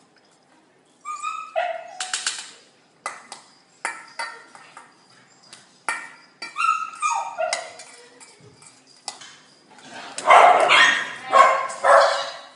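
A dog barking and yipping in short bouts, loudest in a run of barks near the end, over sharp clinks of a metal food bowl as a puppy eats from it.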